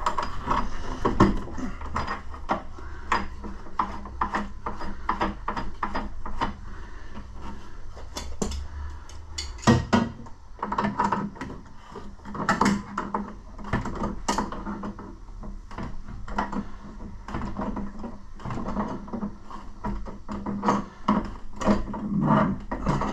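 Irregular clicks and knocks of a spanner and metal fittings as the return pipe's nut is done up onto the boiler pump, with a low rumble that stops about halfway through.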